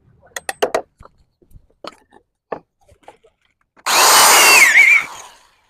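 Several light knocks of bamboo being handled, then about four seconds in a power tool runs for about a second against bamboo, a loud rasping burst with a wavering whine that cuts off.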